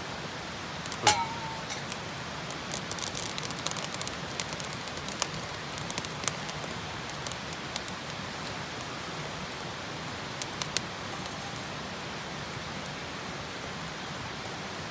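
Wood fire burning with a steady hiss and scattered sharp crackles and pops, busiest in the first half, with a louder knock about a second in.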